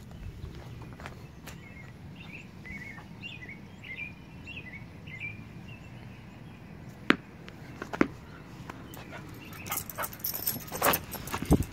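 Cocker spaniel barking in short, sharp barks: two single barks about seven and eight seconds in, then a quick run of barks near the end.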